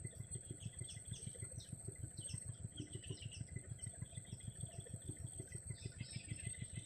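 Birds chirping in short, high, repeated calls over a steady, rapid, low throb of an engine running, with a constant high tone above.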